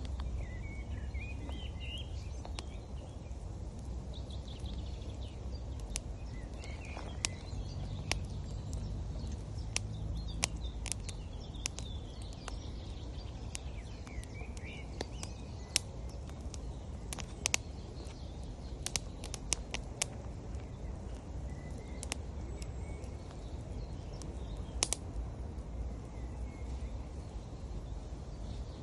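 Campfire wood crackling, with sharp, irregular pops scattered throughout, over a steady low rush of river water, while small birds chirp now and then.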